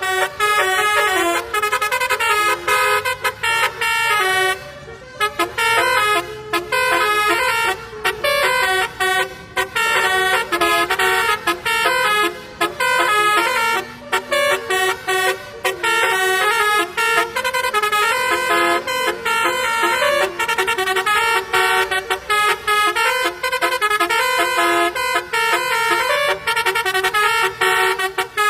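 Basuri telolet horn, a multi-trumpet musical air horn of the kind fitted to Indonesian buses, playing a quick melody. Several tones sound together and step from note to note, with brief breaks between phrases.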